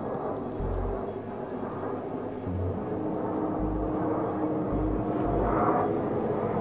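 Jet engine noise from the Red Arrows' BAE Hawk T1 jets flying their display: a steady broad rush that grows gradually louder.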